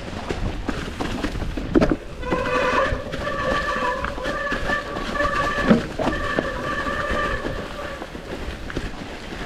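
Mountain bike disc brakes squealing at one steady pitch, held for about six seconds with a few short breaks as the brakes are dragged on a wet, slippery descent, over the rumble of tyres on rock and dirt. Two thumps from the bike hitting rocks, about two seconds in and near the six-second mark.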